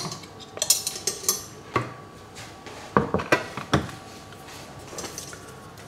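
Wooden cutting board being handled and set down on a kitchen hob and countertop: several separate wooden knocks and clatters over the first four seconds.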